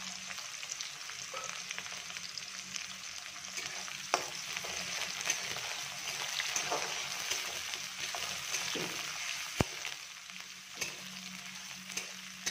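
Sliced onions sizzling in hot mustard oil with cumin in a metal kadai, with a steady frying hiss. A metal spatula stirs them, scraping and tapping the pan now and then, with one sharp knock about three-quarters of the way through.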